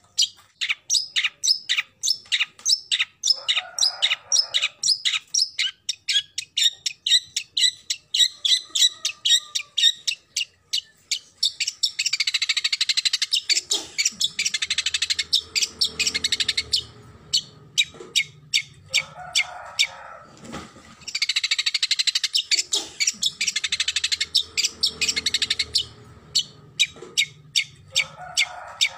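Long-tailed shrike calling: a fast run of sharp, harsh calls, about three a second, then about twelve seconds in a long burst of dense, grating chatter, repeated again later.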